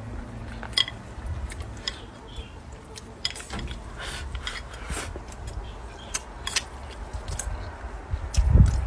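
Close-miked eating: chewing and crunching of food with many short sharp clicks, and a dull thump near the end.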